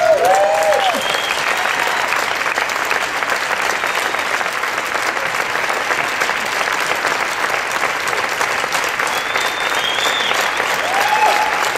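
Crowd applauding steadily, with a few voices calling out near the start and again near the end.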